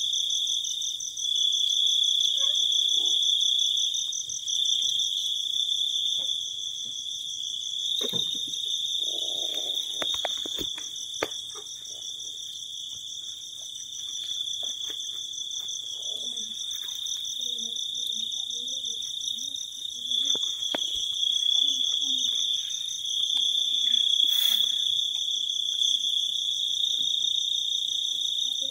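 Crickets trilling in a steady, continuous high-pitched chorus, with occasional faint clicks and rustles close by.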